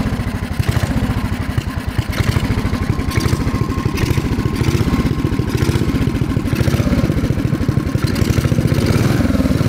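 Big-block Briggs & Stratton engine, mounted lengthwise in a mini bike frame, running at idle with a rapid, even firing beat. The level lifts a little about two seconds in and again near the end.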